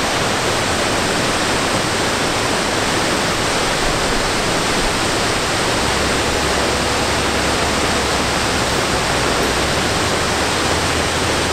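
Waterfall's falling water making a steady, even rush.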